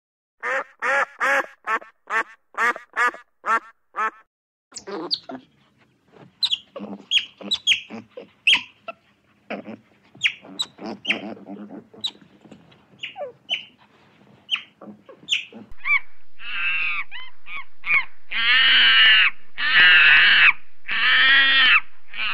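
Animal calls in three stretches: first a quick run of about eight short, quack-like calls, then a jumble of short calls and chirps, then longer calls lasting about a second each over a steady background.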